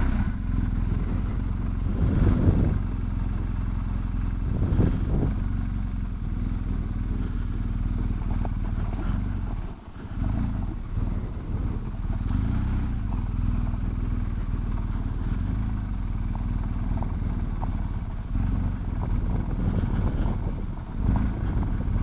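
BMW R1250 GS Adventure's boxer-twin engine running at low speed as the bike is ridden slowly over gravel. The engine sound dips briefly about ten seconds in.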